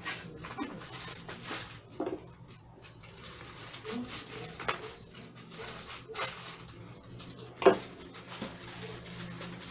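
Packaging and accessories being handled on a table: light rustling with scattered clicks and knocks, and one sharper knock near the end.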